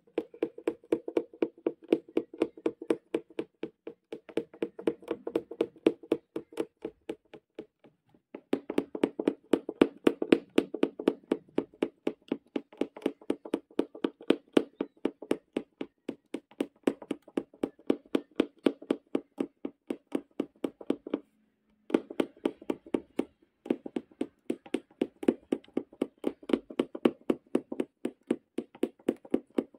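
Punch needle punching again and again through fabric stretched taut in a wooden embroidery hoop: a steady run of taps, about four or five a second. The tapping stops briefly about a quarter of the way in and again about two-thirds of the way in.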